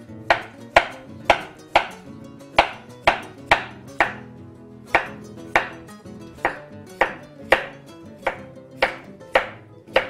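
Kitchen knife slicing zucchini into rounds, each stroke ending in a sharp knock on a wooden cutting board, about two cuts a second.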